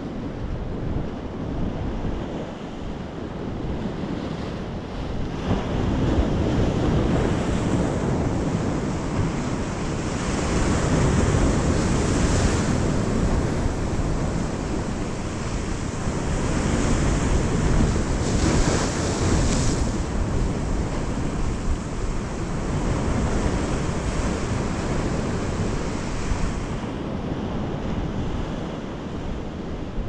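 Sea surf breaking on rocks and washing up a sandy beach, a steady rush that swells into louder surges every few seconds.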